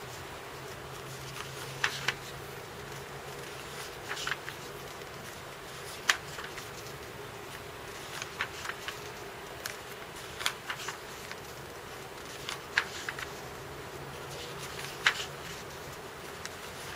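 Sketchbook paper pages handled and turned by hand, a short sharp rustle or flap every two seconds or so, over a steady low buzzing hum.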